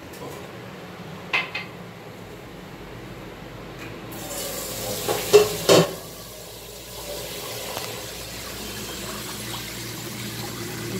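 Slotted metal spoon knocking and scraping in a steel cooking pot of chicken, with two sharp clanks about five seconds in, over a steady hiss that starts partway through.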